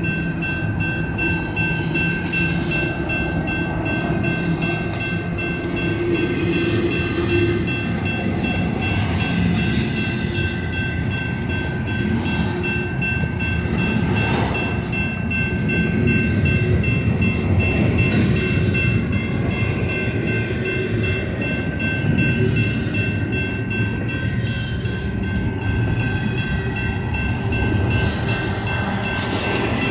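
Intermodal freight train rolling past: a steady rumble of wheels on rail, with two thin high tones ringing the whole time.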